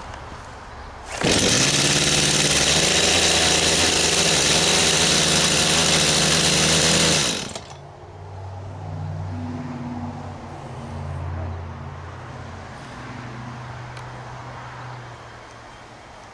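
Brand-new Stihl MS251 C chainsaw's two-stroke engine catching on a pull from cold on half choke, running fast and loud for about six seconds. It then drops to a much quieter, steady idle.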